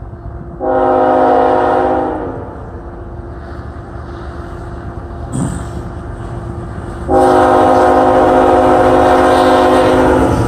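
Air horn of an approaching Tier 4 freight locomotive sounding a several-note chord: one blast of about a second and a half near the start, then a long blast from about seven seconds in that carries on past the end. The train's low rumble runs underneath throughout.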